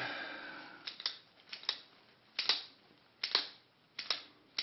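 Bally electromechanical pinball score reel being stepped through its positions, clicking once for each step, about one step every 0.8 s. Each step is a quick double click as the mechanism advances and the reel snaps into place. It is being tested after cleaning for a sticky, hanging reel.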